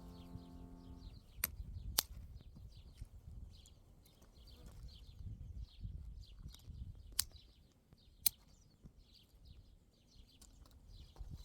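Small birds chirping busily with a low rumble underneath, broken by four sharp clicks. The tail of piano music dies away in the first second.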